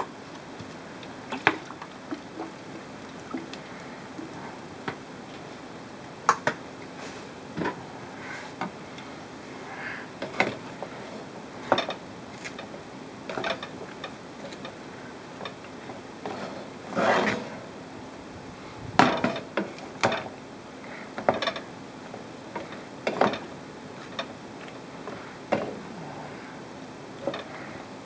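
Wooden spatula knocking and scraping against a frying pan as chopped vegetables and meat are stirred, in irregular strokes with a few longer scrapes partway through.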